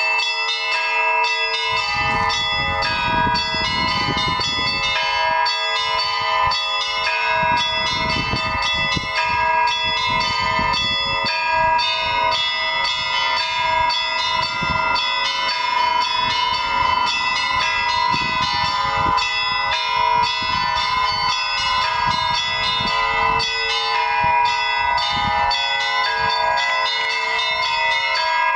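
Russian Orthodox church bells rung together in a continuous peal: higher bells strike rapidly over larger bells ringing on steadily, with a low rumble coming and going underneath.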